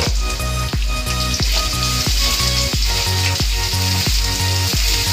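Sliced onions sizzling as they fry in hot oil in a non-stick kadai, with a spatula stirring them near the end. Background music with a steady beat and bass line plays throughout.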